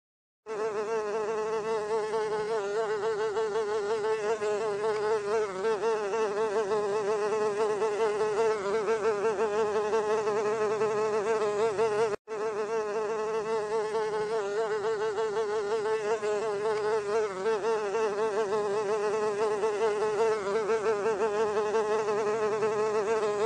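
Housefly buzzing in flight: a steady, wavering drone. It starts about half a second in and cuts out for an instant about twelve seconds in.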